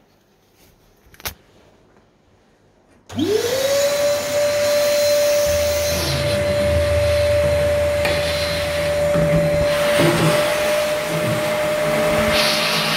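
Cheap Stanley vacuum cleaner switched on about three seconds in: its motor spins up with a quickly rising whine, then runs steadily at one pitch over a loud rushing of air. A single click comes about a second in, before it starts.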